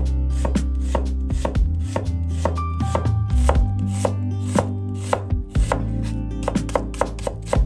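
Kitchen knife chopping food on a cutting board, a quick, even run of cuts at about four a second, over steady background music.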